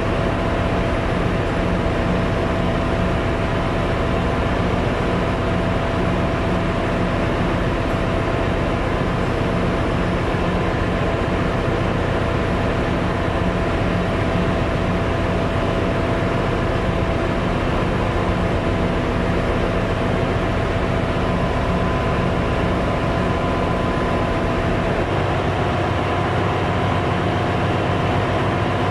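Steady engine-room machinery noise aboard a ship: a constant loud hum with a few steady whining tones from running auxiliary machinery. The main diesel engine itself is stopped, its crankcase doors open for inspection.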